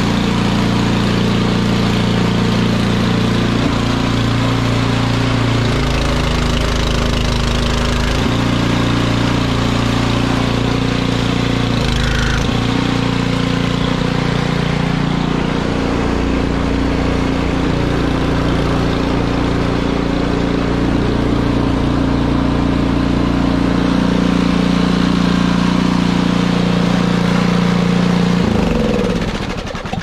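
Poulan Pro snowblower engine running steadily, its note shifting now and then as the machine is pushed into heavy snow, then winding down and stopping near the end. The auger is not turning, which the owner puts down to ice build-up.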